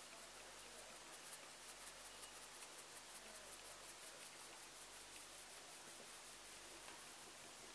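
Flour being sifted through a stainless-steel mesh sieve, its rim patted by hand to shake the flour through: faint, soft, even tapping, about four to five taps a second.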